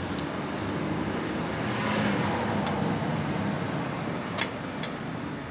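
A motor vehicle going past, its engine and road noise swelling about two seconds in and then fading, with a couple of light clicks near the end.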